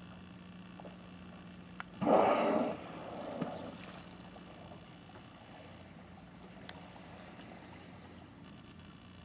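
A killer whale's blow: one loud, rushing exhalation about two seconds in as it surfaces, with a weaker breathy tail just after. Under it, a whale-watching boat's engine idles with a steady low hum.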